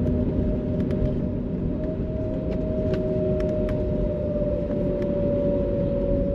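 Airbus A321neo cabin noise while the airliner taxis after landing: a steady low rumble with a steady engine whine that sags slightly in pitch, and light scattered rattles.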